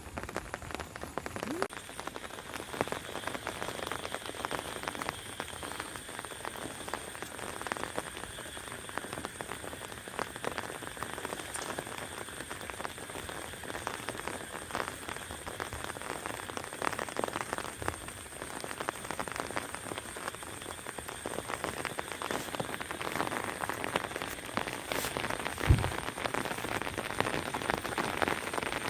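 Steady rain falling, a dense patter of many drops, with a faint steady high-pitched tone above it. A single thump near the end.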